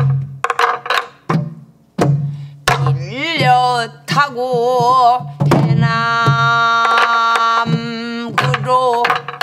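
A woman singing pansori in a strong voice with heavy vibrato, holding one long note from about six to eight seconds in. She accompanies herself on a sori-buk barrel drum, beaten with a stick in a few sharp, spaced strokes.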